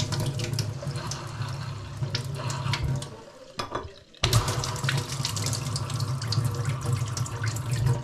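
Kitchen mixer tap running into the sink with a steady rush and a low hum. It is turned off about three seconds in, turned back on sharply about a second later, then shut off again at the end.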